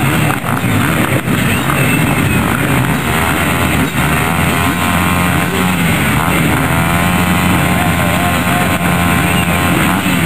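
A grid of motocross bikes running their engines at the start line, with rock music playing over them.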